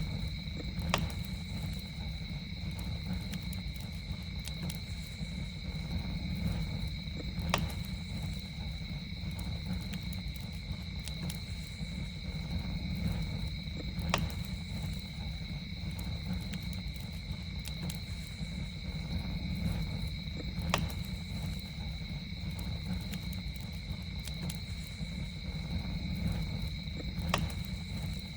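Campfire crackling: a low steady rumble of burning wood with sharp pops, the loudest about every six or seven seconds and fainter crackles between. A steady high-pitched drone of night insects runs under the fire.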